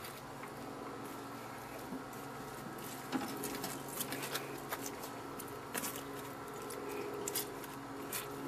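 Burning charcoal briquettes under a brisket, crackling with irregular small pops and ticks that come more often after about three seconds.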